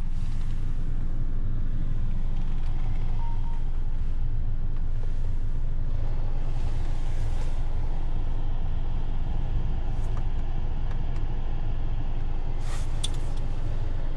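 Peugeot 208's 1.2 PureTech three-cylinder turbo petrol engine idling steadily, heard from inside the cabin, with a few sharp clicks of the climate-control switches near the end.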